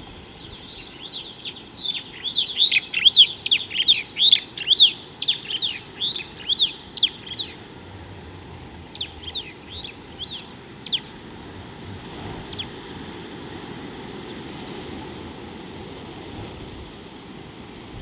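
A bird calling a rapid series of short, high, downward-sweeping chirps, about two or three a second, then a few more spaced-out chirps around ten seconds in, over a steady background hiss.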